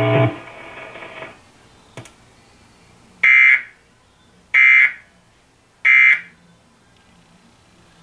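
Emergency Alert System end-of-message signal from a television's speaker: three short, loud, buzzy data bursts (the SAME digital code) about a second apart, marking the close of the national test alert. Before them, a steady hum cuts off just after the start, and a single click comes about two seconds in.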